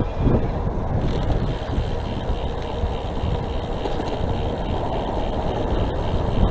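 Steady wind rush over the microphone and low rumble of tyres on the road from an electric bicycle in motion.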